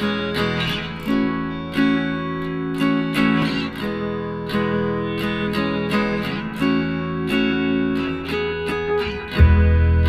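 Background music: acoustic guitar strumming in an easygoing Latin-island style, a deep bass coming in near the end.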